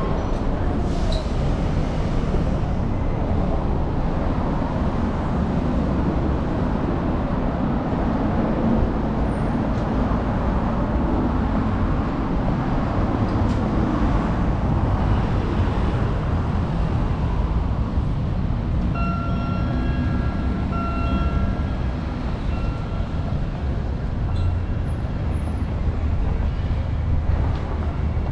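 Busy city street ambience: a steady rumble of road traffic and passing cars along a multi-lane road. About two-thirds of the way through, a steady electronic tone sounds on and off for a few seconds.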